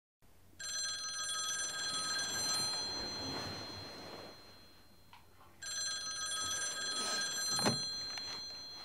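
Landline telephone bell ringing twice, each ring about two and a half seconds long and dying away, with a short knock near the end of the second ring.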